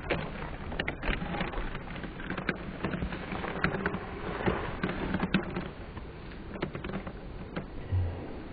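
Footsteps of sneakers on brick paving: irregular scuffs and taps, mixed with the rubbing and knocking of a phone handled close to the microphone.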